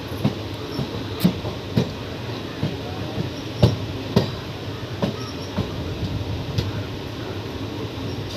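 Passenger train coach rolling slowly out of a station: a steady rumble with sharp clacks from the wheels on the track, about two a second at first, thinning out after about five seconds.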